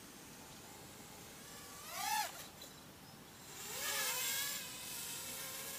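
Micro FPV quadcopter's brushless motors (DYS 1104 4000kv) and three-inch Gemfan props whining, the pitch sweeping up and down as the throttle is punched about two seconds in. Around four seconds in the quad passes close with a louder buzzing rush, then settles into a steady whine.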